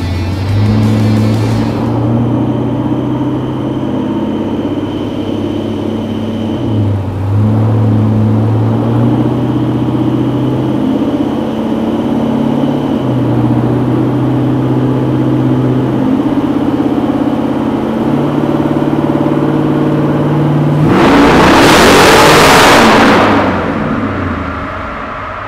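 LS3 V8 of a Factory Five '35 hot rod truck running on a chassis dyno, its note holding steady and stepping up and down in pitch every few seconds. Near the end a loud rushing noise swamps it for about two seconds.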